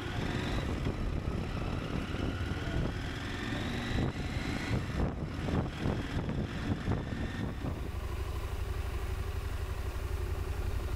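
Husqvarna Norden 901's parallel-twin engine pulling with a rising pitch, then easing off, and running slow and even at low revs near the end as the bike rolls at walking pace.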